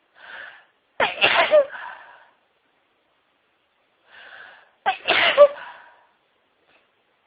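A person sneezing twice, about four seconds apart, as part of a long sneezing fit. Each sneeze starts with a short in-breath, then comes a sudden loud burst that trails off.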